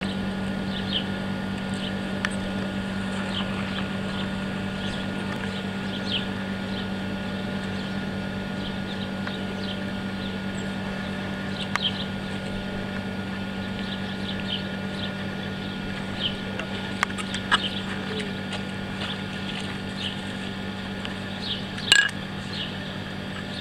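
Steady low electrical-mechanical hum of a passenger train standing at a station, with birds chirping in short calls throughout. A couple of sharp clicks come near the end.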